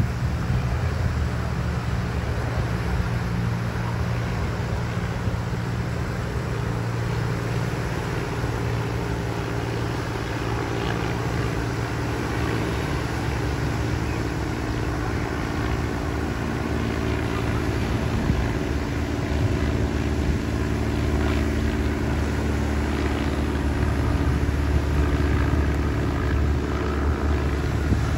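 Piper Pawnee's single piston engine and propeller droning steadily as the banner-towing plane passes overhead at low speed, growing a little louder in the second half.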